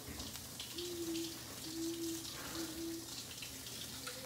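Water running and splashing faintly in a kitchen sink, with a few soft clinks. Three short, steady, faint tones sound in the background about one, two and three seconds in.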